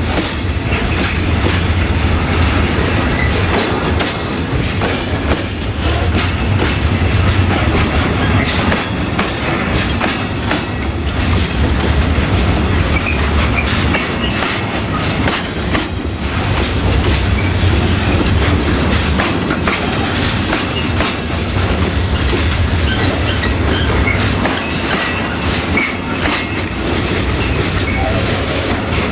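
Freight train of covered wagons rolling past close by: a steady, loud rumble of steel wheels on rail, with a running clickety-clack as the wheelsets cross the bolted rail joints.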